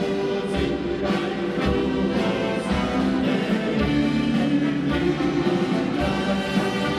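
Live German folk band (Volksmusik) playing, with accordion, electric guitar, keyboard and drum kit over a steady beat.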